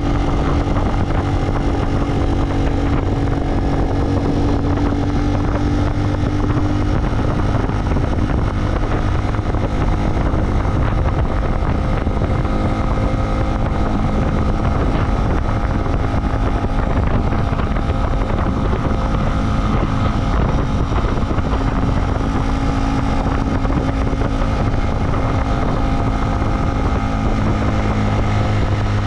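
A motor vehicle's engine running steadily while under way, with wind rushing over the microphone.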